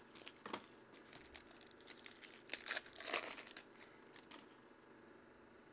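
Foil wrapper of a trading-card pack crinkling and tearing as it is opened by hand. The crackling comes in clusters, loudest around three seconds in, then dies away to faint handling.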